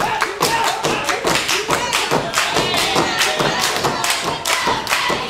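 Hungarian Roma dance performed unaccompanied: a fast steady beat of hand claps and stamping feet on a stage, with a voice singing over it from the start.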